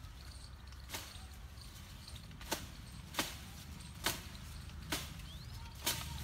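Sharp chops of a hand blade striking tree branches, six blows at uneven intervals of about a second.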